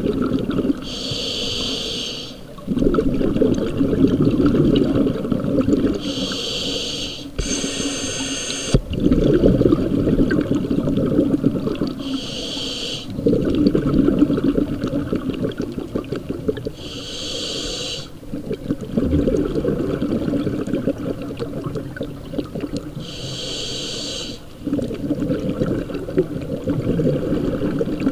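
Scuba diver breathing through a regulator underwater. Each breath is a hissing inhale of about a second, followed by several seconds of bubbling exhale. The cycle repeats roughly every five seconds.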